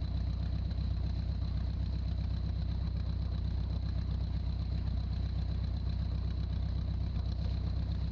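Lake Buccaneer amphibian's pusher piston engine running steadily as the seaplane taxis on the water, with water rushing and spraying along the hull.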